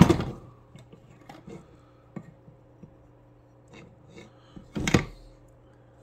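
Knocks, taps and clinks of a chainsaw crankcase being handled after it is split, its halves and crankshaft knocking together and against the bench. A louder clatter comes right at the start, light scattered taps follow, and another louder knock comes about five seconds in.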